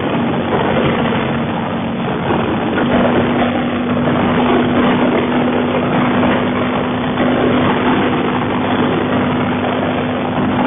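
Wind rushing and the Kawasaki Vulcan 900's V-twin engine running at freeway speed, heard through a helmet's Bluetooth microphone. A steady hum comes in about three seconds in.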